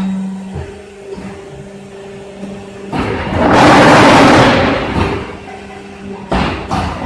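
QT4-18 hydraulic block machine running with a steady hum from its hydraulic unit. About three seconds in, a loud, noisy buzz of the mould vibration compacting the blocks rises for about two seconds and dies down. It starts again at the very end.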